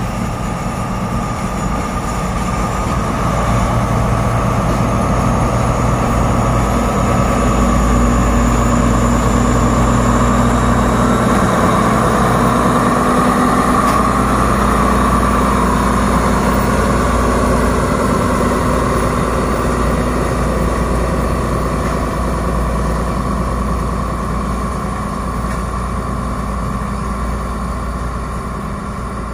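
Diesel locomotive engine running with a steady low drone, growing louder over the first several seconds and easing off near the end.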